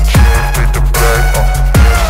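Background electronic music in a dubstep style, with a heavy pulsing bass line and a deep falling bass sweep about every second and a half.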